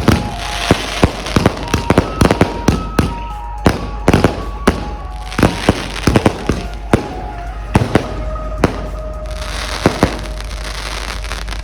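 Firecrackers and multi-shot aerial fireworks going off in rapid, irregular loud bangs over continuous crackling. A melody plays underneath.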